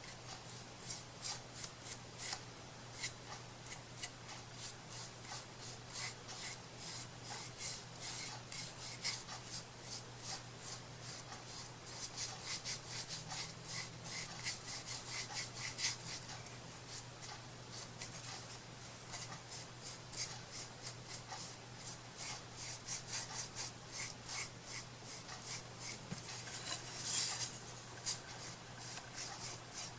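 Quick back-and-forth rubbing strokes on a small wooden craft piece, a few strokes a second with short pauses, briefly busier near the end.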